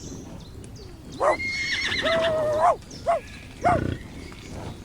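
A farm animal calling: one long call that rises at its start and then holds steady, beginning about a second in, followed by two short calls.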